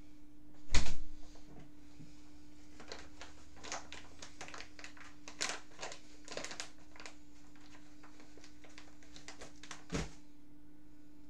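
Handling noises close to the microphone: a loud bump about a second in, then a scatter of light clicks and taps, and a smaller bump near the end, over a steady electrical hum.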